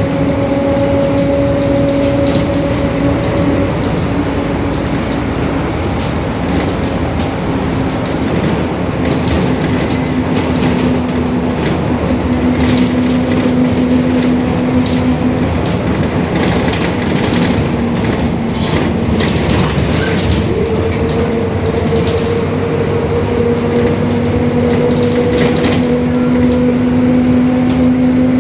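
Mercedes-Benz OF-1721 bus under way, its differential humming over the engine and road noise: a steady pitched hum that fades and comes back, rising slightly near the end as speed picks up. Scattered brief rattles sound through the middle.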